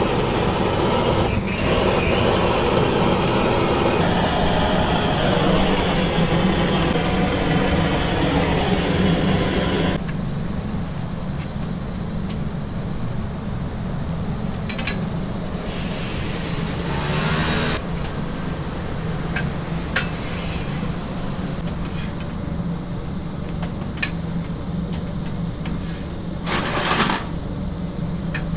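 Steady low machine hum with loud rumbling noise that drops away abruptly about ten seconds in. After that the hum continues more quietly, broken by scattered clicks and clinks and two short hissing bursts.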